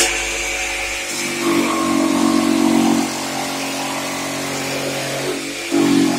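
Small electric air compressor running steadily, a machine drone that grows louder near the end.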